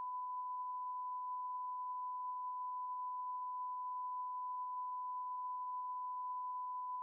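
A steady 1 kHz sine-tone bleep held without a break, a censor bleep laid over a woman's talk so that none of her words are heard.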